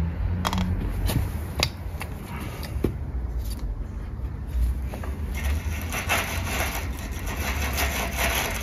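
Sheet-metal gutter parts being handled: a few light knocks, then a longer stretch of rubbing and scraping, over a steady low rumble.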